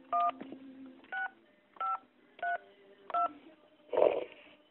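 Telephone keypad touch-tones heard over a phone line: five short two-note beeps, spaced under a second apart, as a phone number is keyed in. A brief muffled noise near the end.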